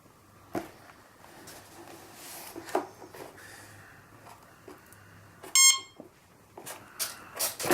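A single short electronic beep, one steady high tone, about five and a half seconds in, among a few light knocks and clicks of things being handled.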